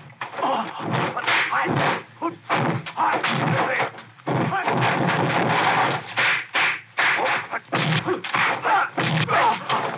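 Kung fu film fight sound effects: a rapid string of punch and strike impacts, one after another, with the fighters' cries between them.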